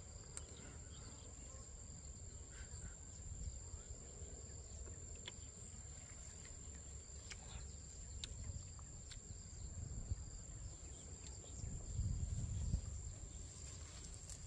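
Insects keep up a steady high-pitched trill, over a low rumble that grows louder near the end, with a few faint clicks as tree branches are pulled down and handled.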